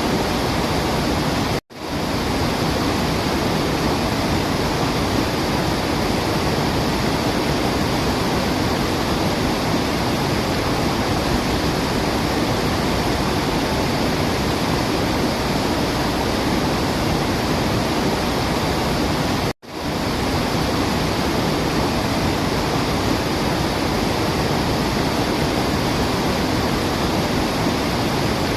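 Waterfall, a steady dense rush of falling water with no birdsong standing out. The sound cuts out for an instant twice, about two seconds in and again near twenty seconds, and fades straight back in, as at the seam of a looped recording.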